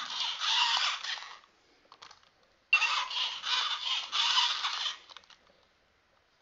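Silverlit Program-a-Bot toy robot's small gear motors whirring in two bursts of about two seconds each as it moves in reaction to an obstacle placed in front of it, backing away. The second burst starts a little under three seconds in.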